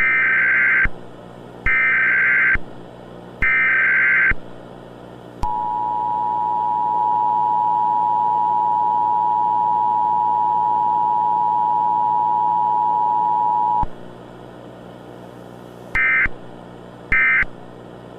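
Emergency Alert System tones: three buzzy SAME data bursts, each about a second long, then the two-tone attention signal (853 and 960 Hz), held steady for about eight seconds. Two short data bursts follow near the end.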